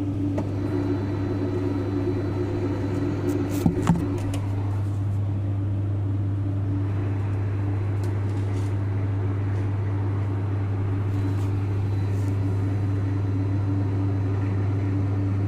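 TIG welding arc running with a steady electrical buzz, broken by two sharp clicks about four seconds in.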